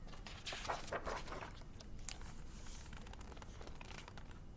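Pages of a picture book being handled and turned: a papery rustle with a few crisp crinkles, mostly in the first half.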